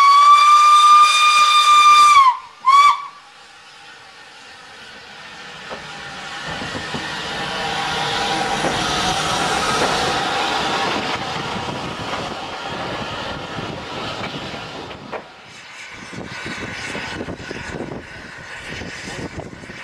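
Saddle-tank steam locomotive's whistle: one long steady blast of about two seconds, then a short second blast. Then the train pulls away and its coaches run past close by, the rumble of wheels and steam rising and fading.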